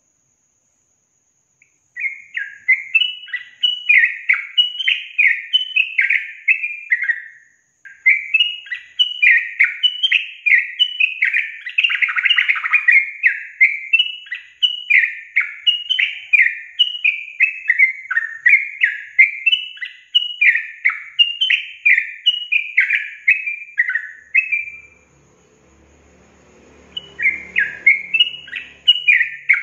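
Yellow-vented bulbul (trucukan) singing a fast, unbroken run of short chirping notes. The song starts about two seconds in, pauses briefly near the middle, stops for a couple of seconds near the end and then starts again.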